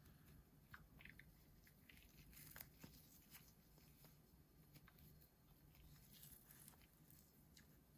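Near silence, with faint scattered small clicks and scrapes of hands working on a phone.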